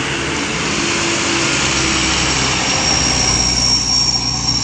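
Diesel truck engines running close by: a loud, steady engine noise with a thin high whine that comes in about two seconds in.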